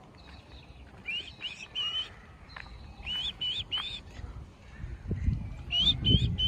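A bird calling in three phrases, each of three short, rising-then-falling whistled notes, the phrases about two seconds apart. A low rumbling noise builds under the last phrase and is the loudest thing near the end.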